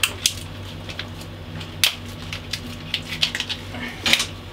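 Side cutters snipping and clicking as solar cable is split out, a few sharp snips with the loudest cluster near the end, and the cable rustling as it is handled between them. A steady low hum runs underneath.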